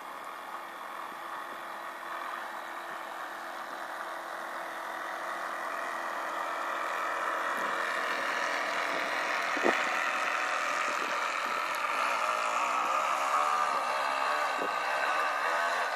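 Small electric motor of a radio-controlled model yacht running steadily, a hum that grows louder over the first half as the boat comes close by. A brief thump about ten seconds in.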